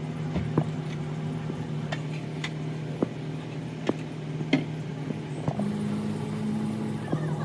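A machine running with a steady low hum, its pitch changing briefly about two thirds of the way through, with irregular sharp clicks and knocks over it.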